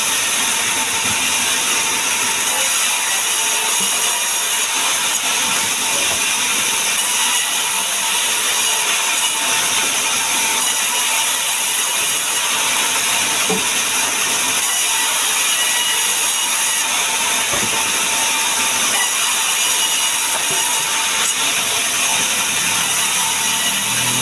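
Power saw running steadily while cutting sengon wood, a continuous high hiss with a faint steady whine.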